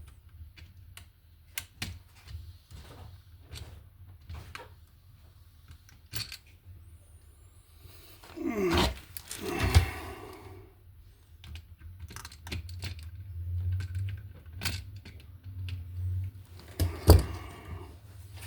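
Small clicks and taps of hand tools and a bare copper ground wire against an electrical outlet as the wire is bent into a loop and fastened under the green ground screw. A short voice-like sound comes about nine seconds in, and a sharper knock comes near the end.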